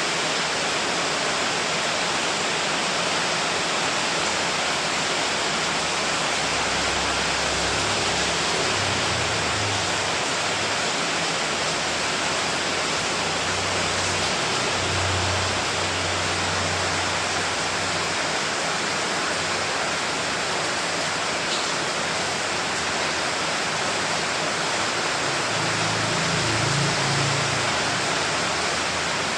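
Steady heavy rain, an even hiss with no break. Faint low rumbles come and go underneath a few times.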